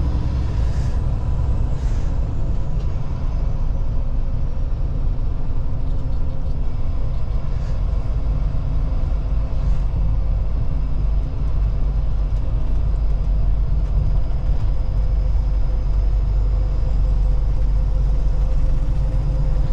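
Freightliner semi truck heard from inside the cab while cruising at about 40 mph: a steady, loud low rumble of engine and road noise, with a faint steady whine above it.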